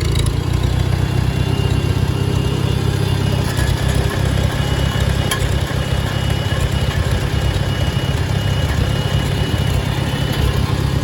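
1955 Farmall tractor engine idling steadily.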